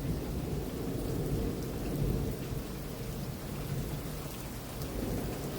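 Rolling thunder rumbling low and continuously, swelling about two seconds in, over a steady hiss.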